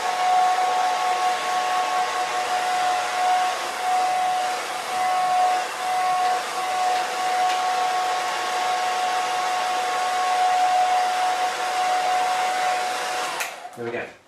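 Handheld hairdryer blowing steadily with a steady whine over the airflow, drying a wet watercolour wash on paper. It is switched off near the end.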